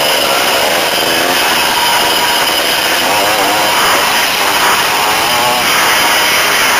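Off-road motorcycle engine running hard along a wooded trail, its pitch rising and falling as the throttle is worked on and off.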